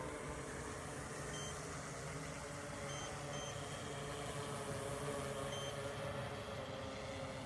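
Yuneec Typhoon Q500 4K quadcopter's electric motors and propellers humming steadily in a hover, with wind rumble on the camera's unfiltered microphone. Four short, faint high beeps come through.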